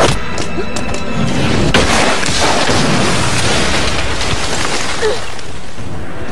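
Action-film soundtrack: a music score with a loud crash or blast about two seconds in, followed by a few seconds of dense rushing noise.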